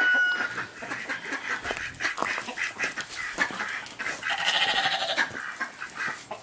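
A farm animal calls once, a wavering cry about a second long a little past the middle, among scattered light clicks and rustling.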